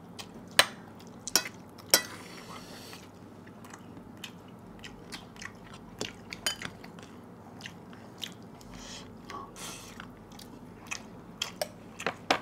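Close-up chewing and biting of pork curry, with sharp wet mouth clicks and crunches. The three loudest come in the first two seconds, and softer ones follow irregularly.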